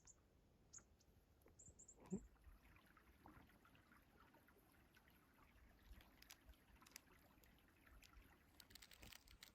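Near silence, with a few faint high chirps in the first two seconds and a faint thump about two seconds in.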